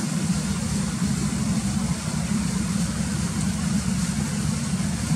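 Iwatani Primus P-153 canister gas stove burning under a metal pot, its burner giving a steady, unbroken roar.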